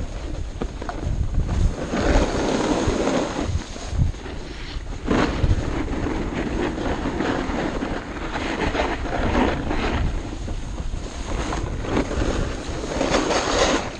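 Wind rushing over the microphone during a fast ski descent, with skis scraping over hard-packed snow in repeated surges.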